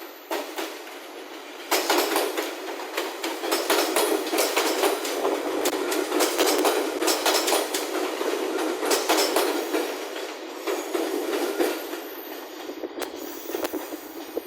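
A train passing close by, its wheels clattering over the rail joints in quick clicks. The sound grows loud about two seconds in and eases off near the end.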